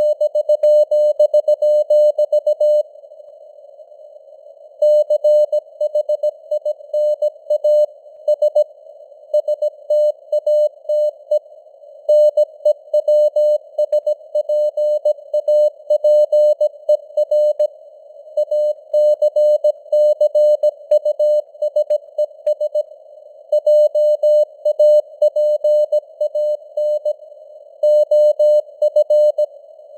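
Morse code (CW) at 17 words per minute: a single mid-pitched beep keyed on and off in quick dots and dashes. The characters come in runs with short gaps between words, and a longer pause about three seconds in. Behind the tone is a faint hiss of simulated radio static.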